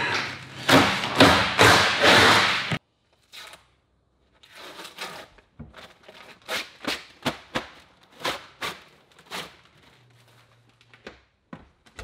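Peel ply being ripped off cured fibreglass tabbing on a bulkhead: a loud burst of tearing and rustling for the first few seconds, then a run of short, quieter rips and scrapes.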